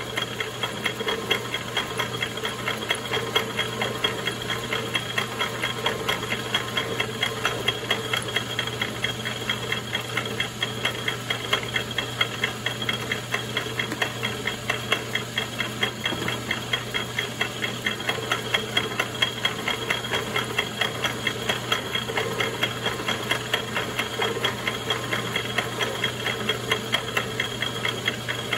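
Logan 922 lathe driving a Woodruff keyseat cutter as it plunges into a shaft to take the keyseat about 70 thousandths deeper: a steady motor hum with rapid, even ticking from the cut.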